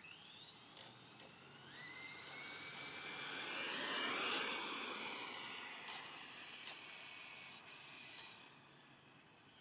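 Traxxas Rustler RC truck with a brushless VXL motor accelerating on a speed run. Its high motor and gear whine rises in pitch over the first two seconds. It is loudest as the truck passes about four seconds in, then fades as it drives away.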